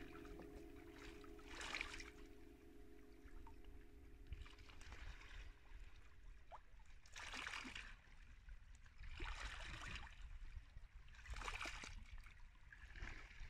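Faint water washing and lapping among rocks in a shallow rock pool, swelling and easing about every two seconds. A sustained ringing tone of a few steady pitches hangs over it and fades out about halfway through.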